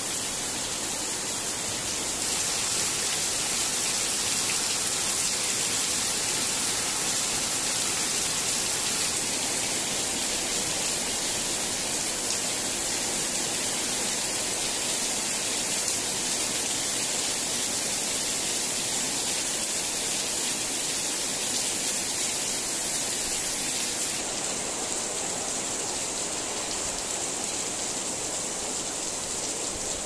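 Heavy rain falling steadily, an even rushing hiss. It gets a little louder about two seconds in, then softer and duller about 24 seconds in.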